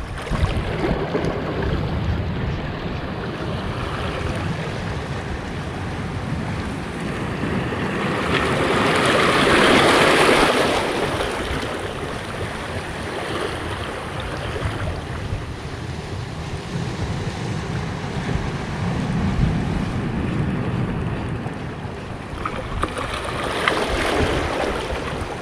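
Sea waves washing against a breakwater, with one wave surging up louder about ten seconds in and falling away, and wind rumbling on the microphone.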